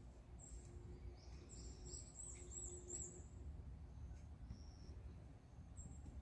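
Faint, high-pitched bird calls: a short chirp about half a second in, a burst of quick twittering notes around two to three seconds in, and single short notes near the end, over a low rumble.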